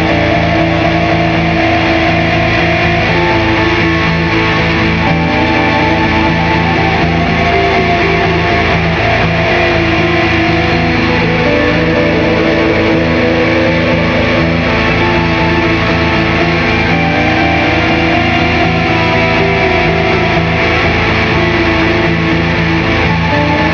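Experimental instrumental music: a loud, dense, unbroken drone of distorted, effects-processed string tones, with slow pitch glides rising and falling a few times in the middle register.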